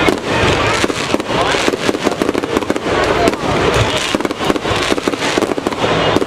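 Aerial fireworks bursting overhead: a dense, continuous run of sharp pops and crackles, many reports close together.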